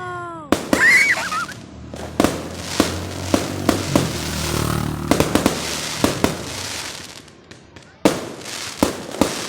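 New Year's fireworks going off: a string of sharp bangs and crackles at irregular intervals, with a short wavering whistle about a second in. The bangs ease off briefly about seven seconds in, then pick up again.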